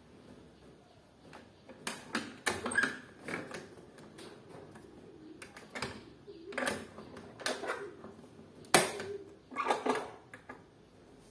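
Irregular sharp metal clicks and clacks from a chrome swing-bar door guard being handled and set in place on an aluminium door frame, about a dozen in all, the loudest near the end.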